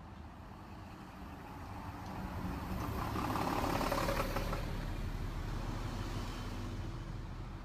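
Road traffic driving past close by: a city bus goes by, its sound swelling to the loudest about three to four seconds in and then fading, followed by a van and a car.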